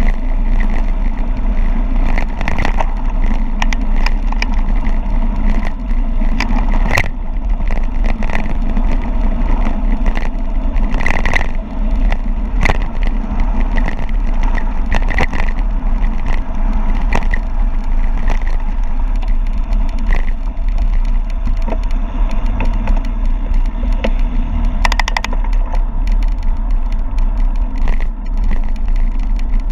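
Wind rushing over the microphone and a mountain bike rattling and crunching down a rough gravel descent, with frequent sharp clicks and knocks.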